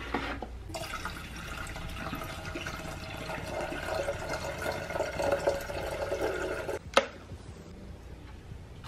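Water poured from a plastic bottle into a glass electric kettle, a steady splashing fill lasting about six seconds. A single sharp click from the kettle follows about seven seconds in.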